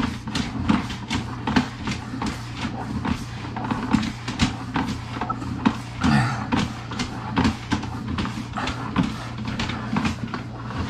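Sewer jetter working in a clay drain pipe, scouring out roots: a steady low hum under a fast, irregular clatter of knocks.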